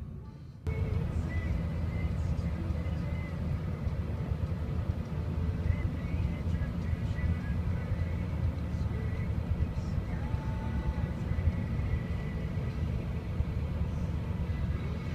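Steady low rumble of a car driving, starting abruptly just under a second in.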